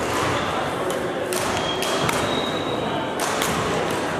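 Badminton rackets striking a shuttlecock in a rally, a few sharp hits about a second apart, with echoing hall chatter and noise from neighbouring courts underneath.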